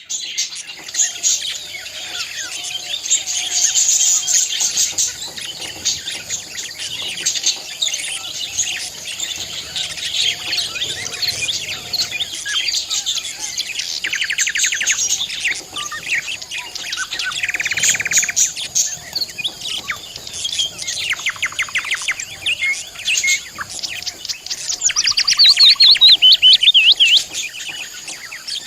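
Several budgerigars chirping and warbling at once in continuous overlapping chatter, with fast trills here and there and a loud, rapid, falling chatter near the end.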